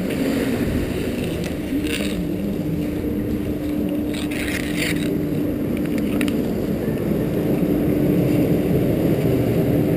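A snow scooter's runners sliding over packed snow: a steady, low rumbling scrape with a faint hum under it. There are short hissing scrapes about two seconds in and again around four to five seconds in.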